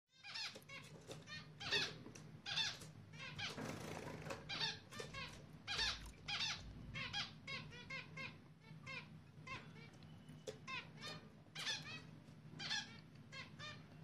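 Newly hatched zebra finch chicks begging in the nest: a fast, continuous run of short, high squeaky chirps, several a second, the sign that the parents are feeding them. A brief rustle comes about four seconds in.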